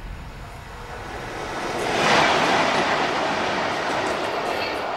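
Train passing on the line, its rushing noise swelling to a peak about two seconds in and then slowly fading, with a faint high squeal near the end.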